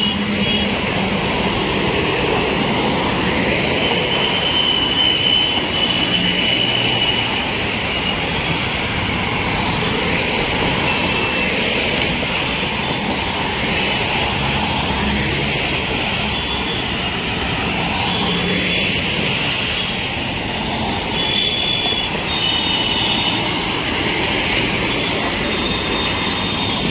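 Road traffic noise as a convoy of SUVs drives past: a steady rush of engines and tyres, with brief high-pitched tones sounding now and then.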